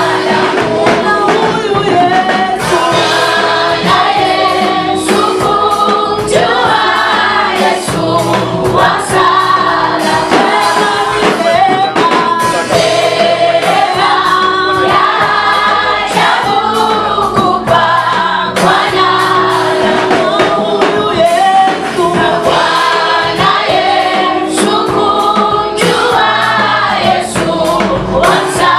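A choir singing a gospel song in Swahili with band accompaniment.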